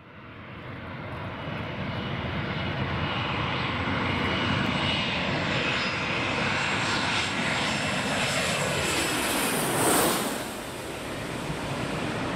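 Embraer ERJ-190 twin turbofan jet (GE CF34 engines) on approach and landing: a steady jet roar with a thin whine that swells in over the first two seconds. It peaks about ten seconds in with a falling sweep as the aircraft passes closest, then settles into a lower roar as it rolls down the runway.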